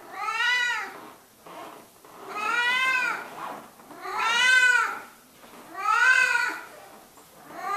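Black-and-white domestic cat meowing repeatedly: four drawn-out meows about every one and a half to two seconds, each rising and then falling in pitch.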